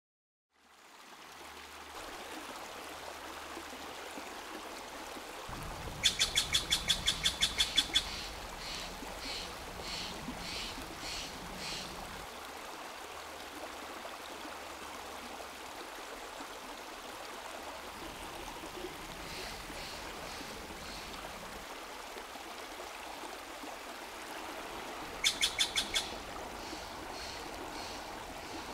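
A steady rush of running water, with a bird calling twice over it: a fast run of sharp, high notes, about five a second, the first time trailing off into softer, slower notes.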